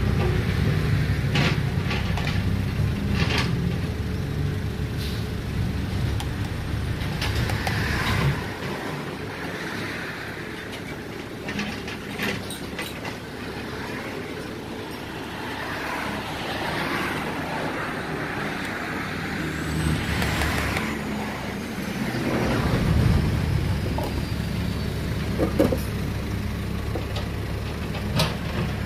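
Low rumble of road traffic that swells and fades, loudest in the first eight seconds and again later, with scattered clicks and knocks of plastic cups and bottles being handled.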